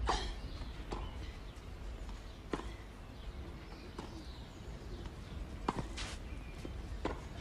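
Tennis ball on a clay court: single sharp pops of the ball being bounced and struck with a racket, spaced a second or more apart. The loudest pair comes near the end, as play starts.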